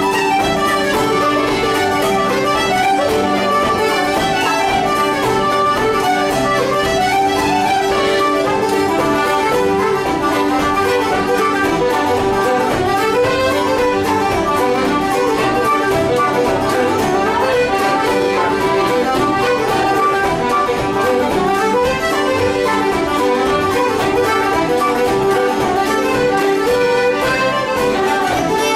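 Live traditional Irish dance music on wooden flute, fiddle and accordion playing the melody together, with guitar accompaniment underneath; the tune runs on at a steady level without a break.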